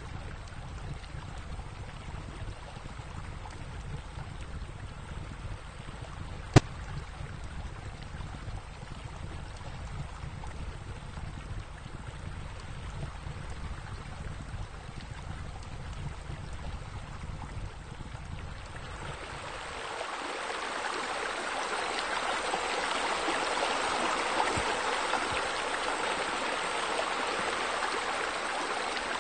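Running, splashing water from pool spillways. It starts as a low rush and turns brighter and louder about two-thirds of the way through. A single sharp click about six seconds in.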